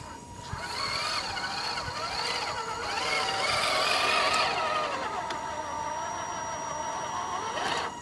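Electric motor and gearbox of a Tamiya High Lift Hilux RC truck whining as it crawls over rough ground. The pitch wavers with the load, is loudest near the middle, then settles to a steadier whine. A sharp knock comes near the end.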